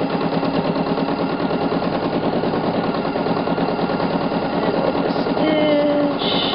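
Elna 6600 sewing machine running fast for free-motion quilting: a steady, rapid clatter of needle strokes as the quilt is guided under the foot.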